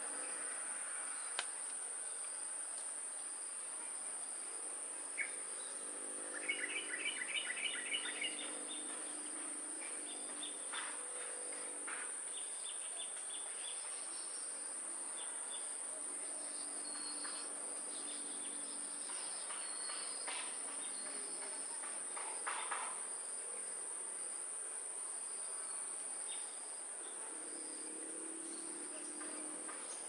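Steady high-pitched insect chorus, with wild bird chirps over it: a quick run of chirps several seconds in and more scattered calls later.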